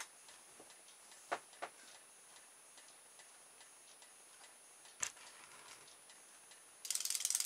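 A few faint plastic clicks from handling, then near the end a sudden, rapid, even ticking starts: the RoboFish toy's magnet-and-coil tail drive beating as the fish goes into the water.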